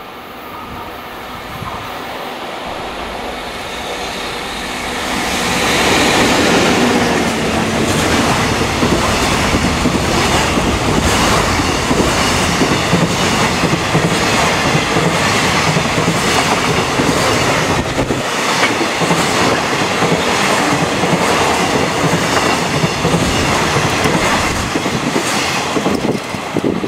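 Freight train hauled by a JR Freight EF64 electric locomotive approaching and passing, with container flatcars. The sound grows to full loudness about six seconds in, then rolls on steadily with the rhythmic clickety-clack of wagon wheels over the rail joints, dropping off right at the end as the last cars pass.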